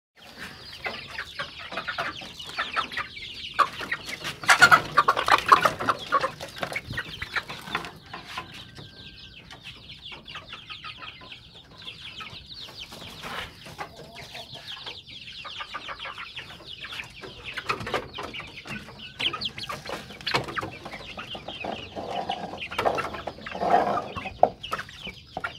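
Kampung chickens clucking in their pen, many short calls overlapping, with the loudest burst of clucking about four to six seconds in.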